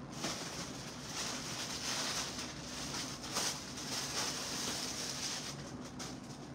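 Rustling of garments being handled, swelling for several seconds and then easing off, over a steady room hiss.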